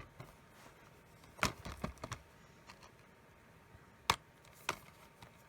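Scattered sharp clicks and knocks of hard plastic disc cases and box-set packaging being handled, about half a dozen taps, the loudest about four seconds in.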